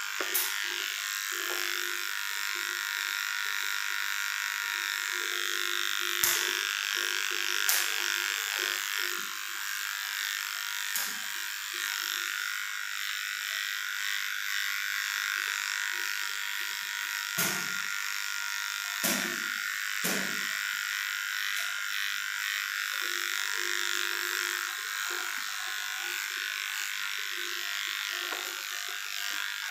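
Electric dog grooming clippers running steadily as they cut through a Shih Tzu's coat, an even high-pitched buzz, with a few short knocks scattered through it.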